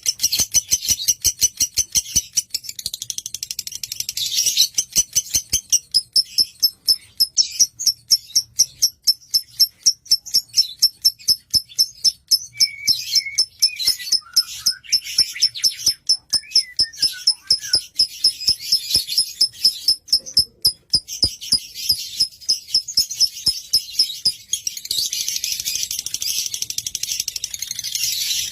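Lovebird singing a long, unbroken run of rapid, high-pitched repeated chirps.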